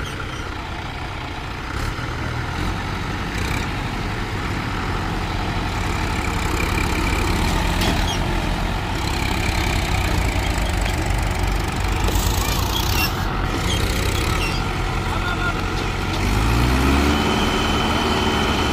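Mahindra 475 DI tractor's diesel engine running under load as it strains to pull its rear wheels out of deep sand. It grows louder after a few seconds and revs up, rising in pitch near the end.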